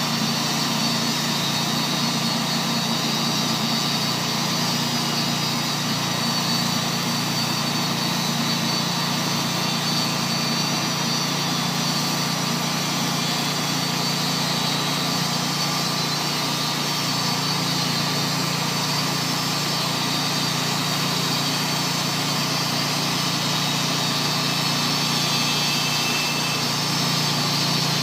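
Tru-Cut HS-70 bandmill running steadily under load, its engine and band blade sawing through a wide log in one continuous cut.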